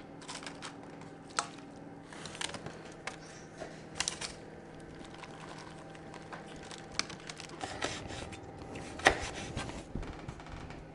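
Scattered clicks, taps and crinkles of a serving spoon on a baking tray lined with baking paper, as meat, canned corn and cheese sauce are spooned over tortilla chips. One sharper click stands out near the end, over a faint steady hum.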